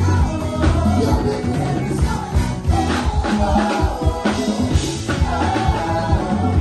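A live band playing with singing over a steady beat of drums and bass guitar.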